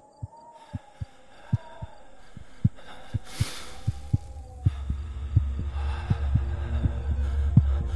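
Heartbeat-like low thumps, two or three a second and unevenly spaced, over a low drone that swells steadily louder; a faint wavering tone hovers above them in the first half.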